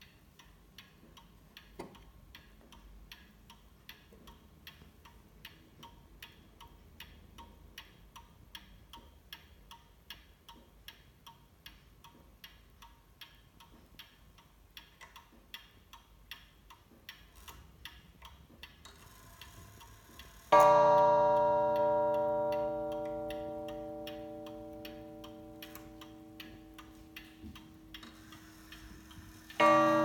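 Antique Ansonia mantel clock ticking steadily with its pendulum movement. About twenty seconds in it strikes once, a loud ringing note that fades slowly, and it strikes again just before the end.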